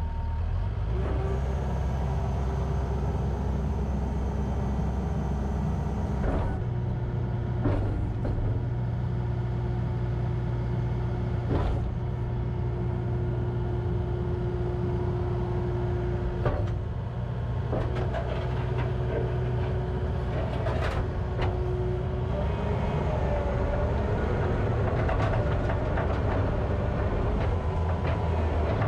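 Kubota SVL75-2 compact track loader's 75 hp diesel engine running as the machine works, its pitch shifting about six seconds in, with a few sharp clanks scattered through. Later a wavering whine rises and falls over the engine.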